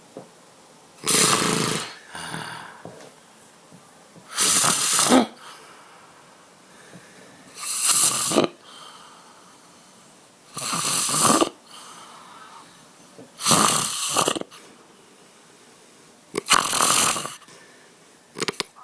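A person snoring loudly in a regular rhythm: six long snores, each about a second, coming about every three seconds, with softer breaths between them and a short snort near the end.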